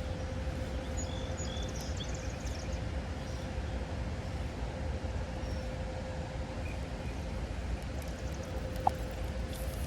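Steady low rumbling outdoor noise, with a few faint high chirps about a second in and a short click near the end.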